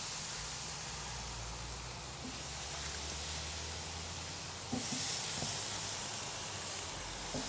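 Jerk chicken sizzling on a grill: a steady hiss that swells louder about five seconds in and again near the end.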